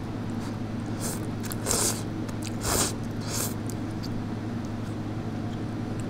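A person slurping instant ramen noodles from chopsticks: four short, hissy slurps in the first three and a half seconds, the loudest two near the middle, over a steady low hum.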